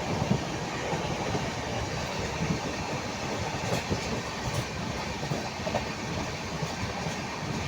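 Train running on the rails: a steady rumble with frequent irregular knocks and clatter from the wheels.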